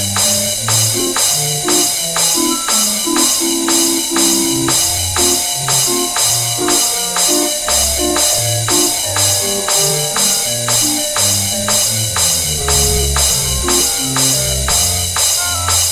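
Background music: a bouncing bass line and a melody, with a bright clash or jingle on every beat.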